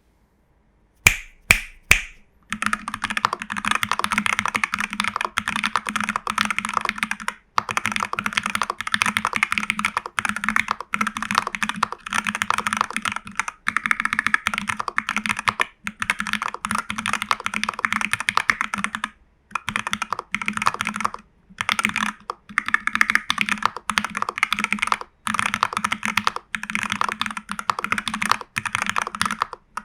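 Typing on a TU40 40% mechanical keyboard in a plastic case with case foam, PCB foam and a tape mod, fitted with Jelly Strawberry v3 switches, CRP keycaps and lubed Owlab stabilisers. Three separate keystrokes about a second in, then fast, steady typing broken by a few short pauses.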